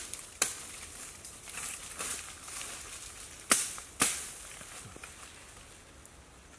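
Rustling through forest undergrowth with three sharp woody cracks, the two loudest about half a second apart in the middle.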